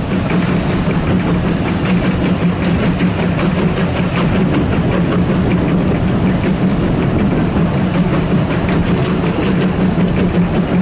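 Steam locomotive hauling a train, heard from a carriage window just behind it: a steady run of quick, even beats over the continuous rumble of the moving train.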